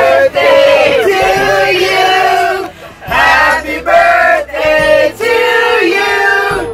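A group of men and women singing together, holding long drawn-out notes with a couple of short breaks between phrases.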